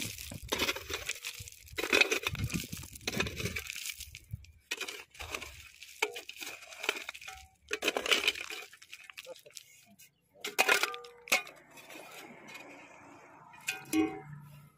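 Mattock blade striking and scraping stony, gravelly ground, stones clinking and rattling with each stroke, a stroke every second or two. The strokes stop about eleven seconds in.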